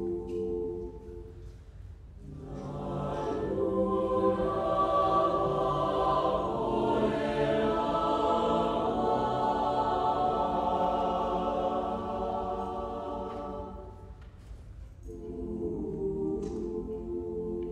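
Mixed choir singing held chords: a soft chord fades near two seconds in, then the voices swell into a loud sustained passage that dies away about fourteen seconds in, and a quieter, lower phrase begins soon after.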